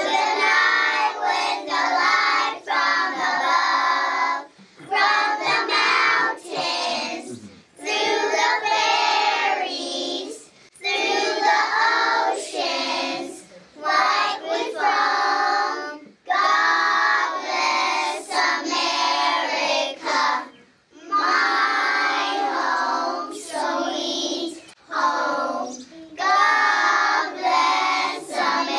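A group of preschool children singing a song together, in short phrases with brief breaks between them.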